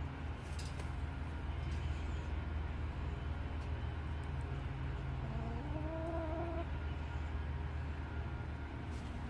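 A domestic hen gives one drawn-out call, rising slightly in pitch, about five and a half seconds in, over a steady low hum.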